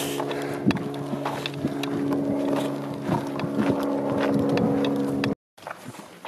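A steady engine drone holding several even pitches, with a few faint scuffs; it stops abruptly about five seconds in.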